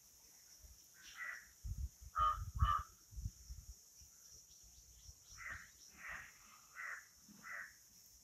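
Crows cawing: a single call about a second in, two harsh caws in quick succession just after two seconds, then a run of four caws spaced about half a second to a second apart in the second half. Low rumbles sit under the first few calls.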